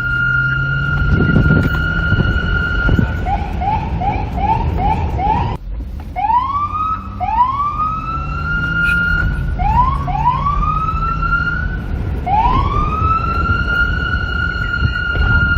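Police car siren switching patterns: a held high tone, then a quick run of five short rising yelps, then five longer wails that each climb and level off into a steady tone, the last one held. A low rumble runs underneath.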